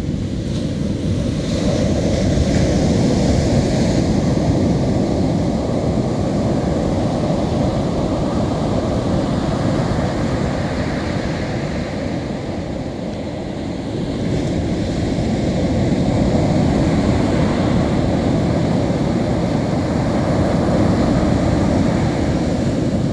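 Surf breaking and washing up a sandy beach, a steady wash that swells and eases as the waves come in, with wind rumbling on the microphone.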